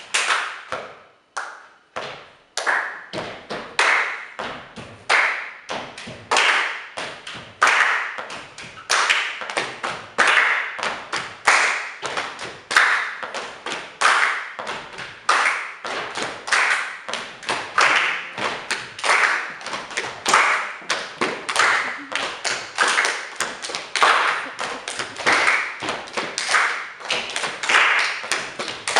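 A group of people performing body percussion: hand claps, slaps and thumps layered in a steady, repeating rhythm, with a strong clap accent about every second and a quarter. The pattern is built on the Fibonacci sequence.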